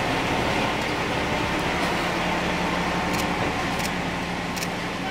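Police SUVs rolling slowly past in a line: a steady engine hum with tyre noise on pavers, and three brief high ticks in the second half.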